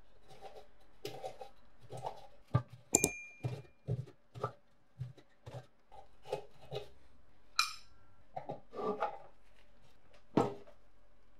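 Flat-blade screwdriver working at rusted screws on the steel base of an antique heater: irregular metal-on-metal clicks, scrapes and clinks, two of them ringing briefly, about three and eight seconds in.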